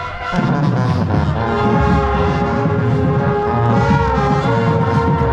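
Marching band brass playing loudly at close range, holding sustained chords over a heavy low end. The band comes in fuller about half a second in.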